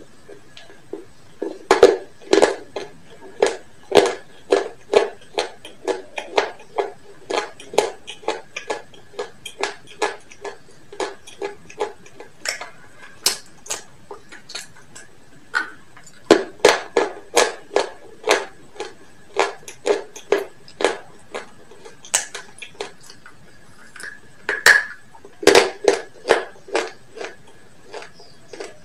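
Close-up crunching of crispy KFC fried chicken being chewed: sharp crackles of the breading, about two a second, in runs with a couple of short pauses.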